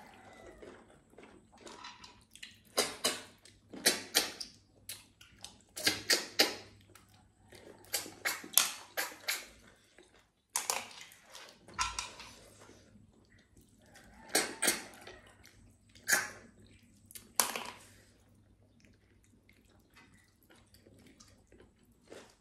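Close-up eating sounds of snail curry eaten by hand: short wet sucking slurps, in clusters every second or two, as snails are sucked from their shells. They grow sparse near the end.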